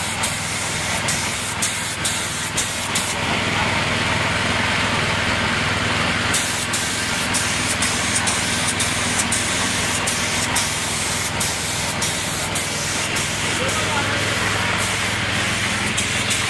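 Paint spray gun hissing as it sprays a scooter fender, in short repeated passes and one longer unbroken spray about three to six seconds in, over a steady low hum.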